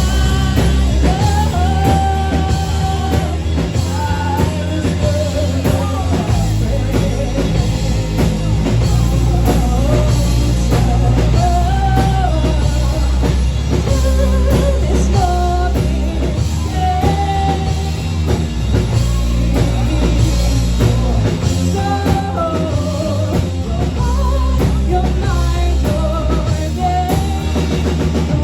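Rock band playing live, with drums, bass and guitar under a sung vocal melody.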